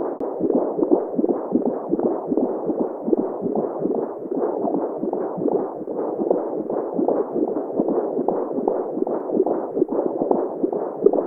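Simulated womb sound: a muffled, continuous whooshing rush with a regular heartbeat pulse running through it.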